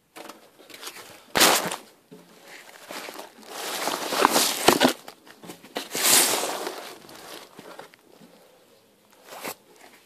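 Cloth rustling and rubbing close to the microphone in irregular bursts, the loudest about a second and a half in and between about four and six seconds in.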